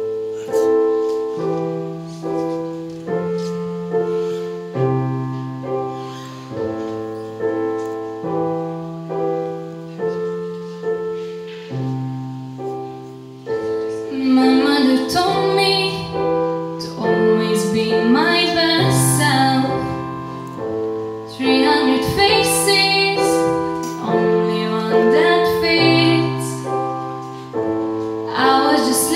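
Electronic keyboard playing a slow piano intro of steady chords. A solo female voice starts singing over the piano about fourteen seconds in.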